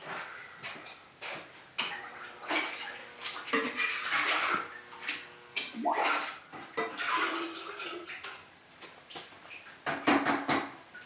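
Liquid glaze splashing and sloshing as ceramic pots are handled, with irregular clinks and knocks of pottery against the bench, and a short ringing tone near the middle.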